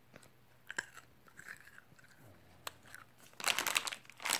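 Plastic snack wrapper crinkling loudly as it is picked up and handled, starting about three and a half seconds in, after a few faint clicks and taps.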